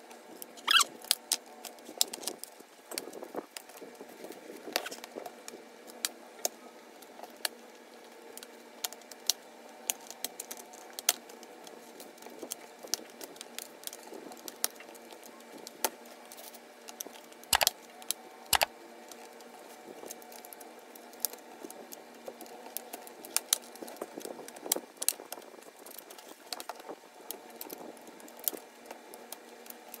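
Plastic pry pick being worked around the seam of an HP Victus 16 laptop's plastic bottom cover, prising it open: many small scattered clicks and scrapes, with two louder snaps about a second apart midway.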